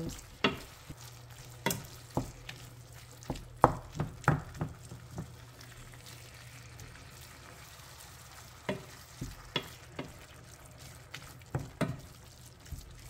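Wooden spatula scraping and knocking against a stainless steel skillet as ground beef is stirred and broken up, over a faint sizzle of the browning meat. The knocks come irregularly, in a busy run at first, a pause in the middle, then again near the end.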